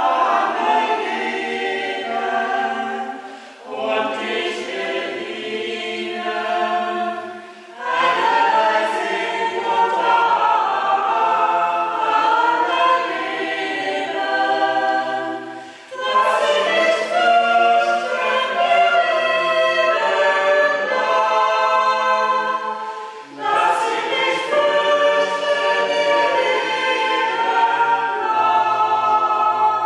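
A choir singing, its phrases separated by four brief pauses.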